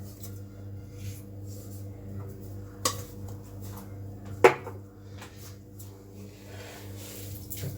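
Two sharp clinks of a utensil against a mixing bowl, about a second and a half apart, with the second the louder, over a steady low hum.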